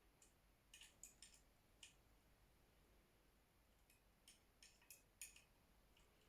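Near silence with faint, scattered clicks of small metal parts: an Allen key and screw being worked as a metal bow sight is refitted to its extension bar. The clicks come in two small clusters, about a second in and again around four to five seconds in.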